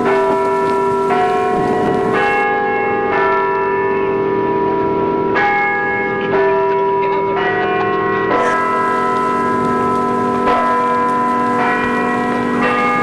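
Bells ringing, a new stroke at a different pitch about once a second over a sustained hum of earlier strokes.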